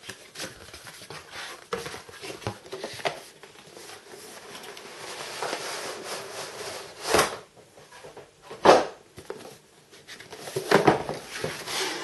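A cardboard graphics-card retail box being opened and unpacked by hand: rustling and sliding of the packaging, with scattered clicks and a few sharper knocks, the loudest a little under nine seconds in.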